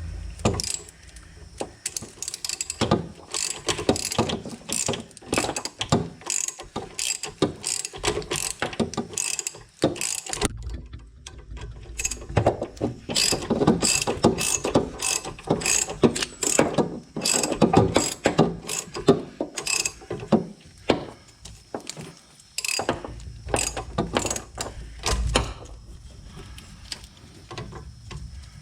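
Hand ratchet clicking in quick runs as a sway bar link nut is turned, in spells with short pauses between.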